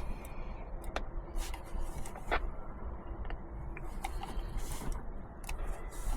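Scattered light clicks and taps over a low rumble, with a faint steady tone briefly heard twice.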